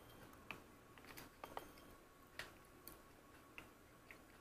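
Near silence with faint, irregular small clicks: mouth sounds of someone chewing a piece of teriyaki turkey jerky.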